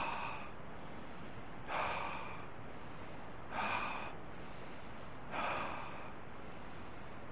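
A man breathing deeply through an open mouth, three slow, audible breaths about two seconds apart, over the steady rush of a creek.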